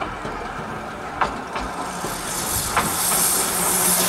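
Narrow-gauge Hunslet saddle-tank steam locomotive drawing close, with a few sharp metallic clicks, then a loud hiss of escaping steam that builds from about halfway through.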